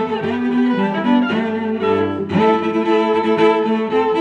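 Background music: bowed strings holding long chords that change every second or two.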